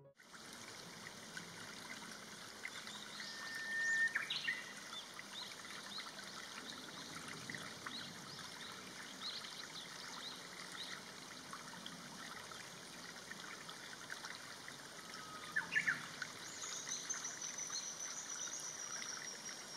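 Running water with scattered wild bird calls: many short high chirps and a few whistled notes, two louder calls, and a long thin falling whistle near the end.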